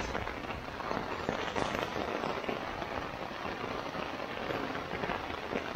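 Steady rain falling on the nylon rain fly of a Sierra Designs Full Moon 2 tent: a dense, even hiss of countless small drop impacts.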